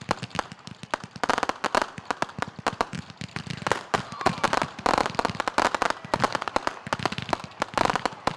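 Fireworks crackling: a rapid, unbroken string of sharp pops, many a second.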